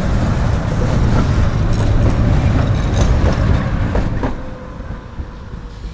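Tram passing close by: a heavy low rumble of its wheels on the rails, with several knocks as the wheels cross rail joints. The sound drops off sharply a little over four seconds in.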